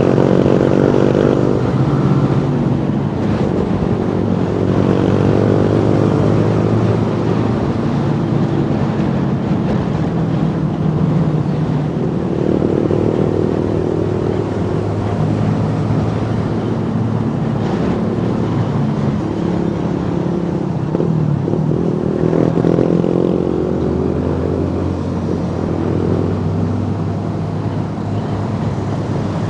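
Honda CB150R single-cylinder engine running under way, its pitch rising as it revs up and falling as it eases off, several times over, with wind and road noise. Near the end it settles to a steadier low note.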